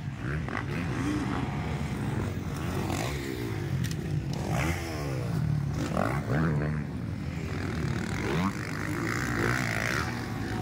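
Several motocross dirt bikes racing, their engines revving up and down over and over as the riders throttle on and off through the jumps, the pitch of the engines rising and falling.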